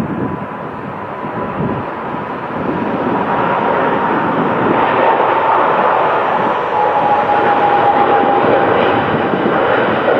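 Boeing 777's twin turbofan engines at takeoff thrust as the airliner lifts off and climbs out. The jet noise grows louder over the first few seconds, with a steady engine whine that drops a little in pitch as the plane passes.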